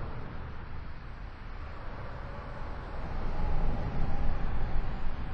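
Steady low rumbling noise with hiss and no clear tone, growing louder about three seconds in.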